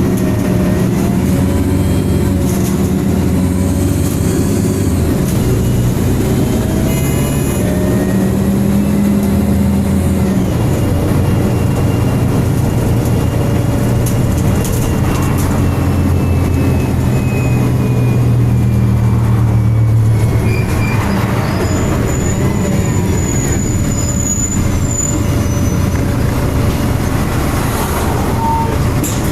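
MAN-chassised Alexander Enviro 300 bus running on the road, heard from on board, its engine and cooling fan sounding steadily. The engine note shifts in pitch several times as it pulls and changes gear.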